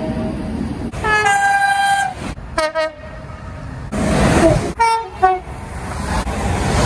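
Train horn sounding several blasts over train noise: a two-tone blast about a second in, a brief higher note dropping to a held lower one, then shorter blasts, some falling in pitch.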